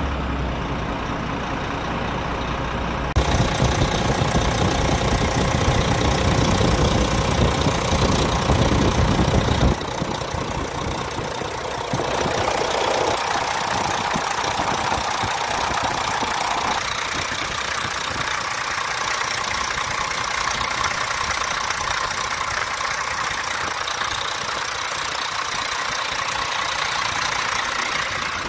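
Renault Kerax 380 DXI truck's six-cylinder diesel engine idling steadily, heard close up at several spots around the truck, including at the engine bay with its belt-driven fan and alternator turning. The sound is louder and deeper for several seconds near the start, then settles to a steadier, higher hum.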